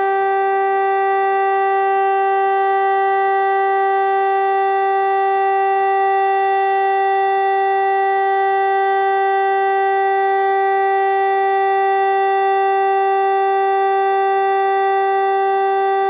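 DS 977 siren sounding the Czech monthly test signal: one continuous, unwavering tone at a fixed pitch, loud and constant throughout.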